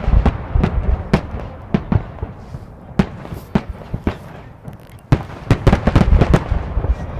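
Fireworks display with shells bursting: a rapid volley of bangs at the start, scattered single bangs through the middle, and another dense volley from about five seconds in.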